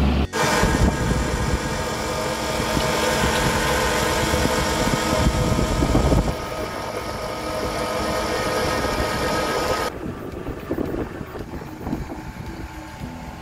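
Excavator-mounted hydraulic auger drill rig running, its engine and hydraulics giving a steady mechanical whine over a heavy drone. About ten seconds in it drops to quieter, rougher machinery noise with wind on the microphone.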